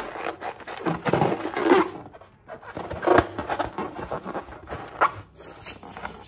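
Slime being squeezed and worked by hand: irregular sticky crackles and squelches, with a few short squeaks about a second in.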